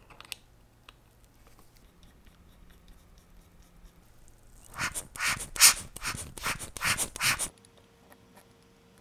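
Scratchy rubbing strokes from hand work on a wristwatch movement: about eight in quick succession over roughly three seconds, after a single small click near the start.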